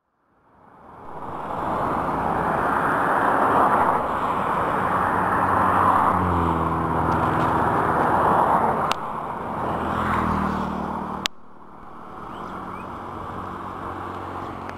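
Road traffic passing close by: a steady rush of vehicle noise, with a passing vehicle's engine note clearly heard around the middle. About three quarters of the way through, the sound drops suddenly to a quieter traffic hum.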